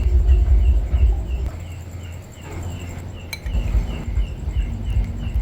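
An insect chirping steadily, a short high chirp repeated about two to three times a second, over a loud low rumble that drops away for about two seconds in the middle.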